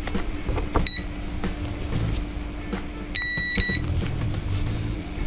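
Victor VC9808+ digital multimeter's continuity buzzer beeping as the test probe tips are touched together: a short beep about a second in, then a longer, louder beep of about half a second around three seconds in, with light clicks of the probe tips touching.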